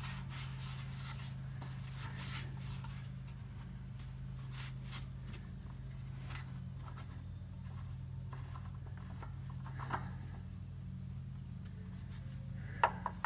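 A cloth rag rubbing over the engine top and around the plastic oil filler cap, then the cap being unscrewed and lifted off, with two sharp clicks near the end. A steady low hum and faint cricket chirps carry on underneath.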